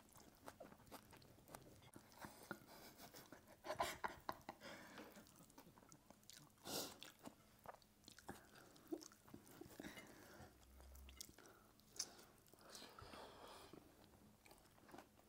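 Faint chewing and crunching of food as two people eat rice and curry with their hands, with scattered soft crunches and clicks, a few of them louder.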